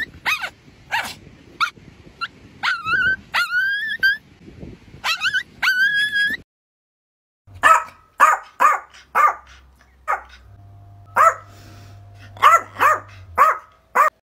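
Yorkshire terrier giving high-pitched yips and whines, each call rising in pitch. After a break of about a second comes a run of short, sharp barks.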